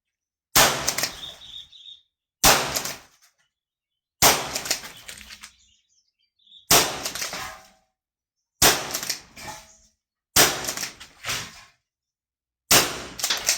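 Seven sharp shots from an R154 shotgun, fired about two seconds apart, each trailing off over about a second.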